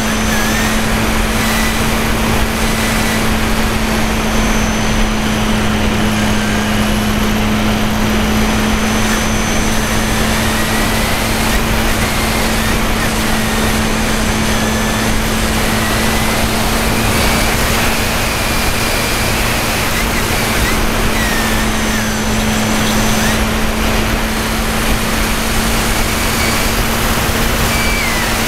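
Radio-control airplane's motor running at a steady pitch, heard from a camera mounted on the plane, with wind rushing over the microphone in flight.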